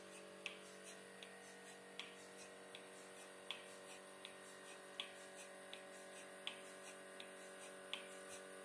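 Faint, even ticking of a milking machine's pulsator, a click about every three-quarters of a second with louder and softer clicks alternating, over the steady hum of the vacuum pump motor.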